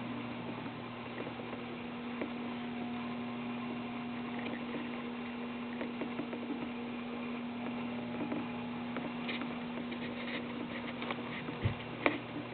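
Steady low electrical hum over faint room noise, with scattered light ticks and two sharp clicks near the end.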